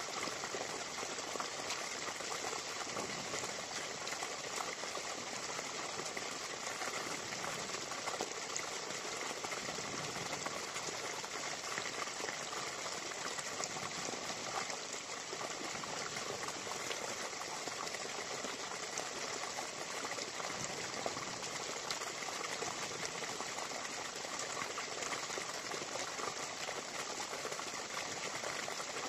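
Steady rushing noise of running water, even and unbroken throughout.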